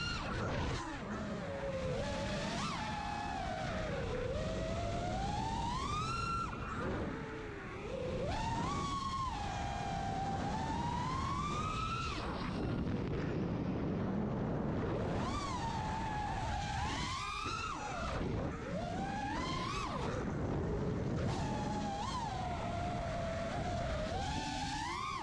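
FPV racing quadcopter's brushless motors and propellers whining, the pitch sweeping up and down constantly as the throttle changes through fast turns and flips. A rush of wind on the onboard GoPro's microphone runs underneath.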